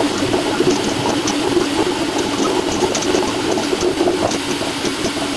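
AnkerMake M5 3D printer printing at speed: a continuous busy mechanical whirring from its fast-moving print head, with scattered light ticks.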